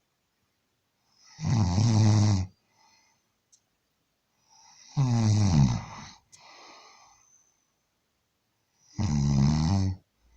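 A man snoring heavily: three loud, buzzing snores about four seconds apart, each lasting about a second, with a softer breath out after the second one.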